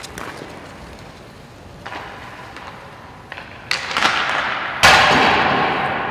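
Hockey player's body and gear hitting and sliding on the ice: a scraping hiss about three and a half seconds in as he goes down on his knees, then a louder thud and slide about a second later as he falls onto his front, the hiss fading over the next second. A sharp tap near the start as the stick strikes the puck.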